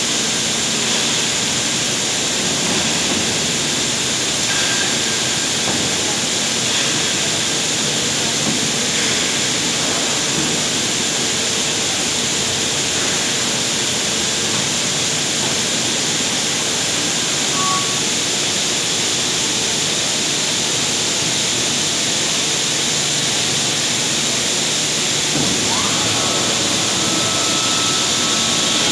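Heavy-component cleaning machine running: a steady rushing hiss of its washing spray and pump, with a faint hum underneath and no change throughout.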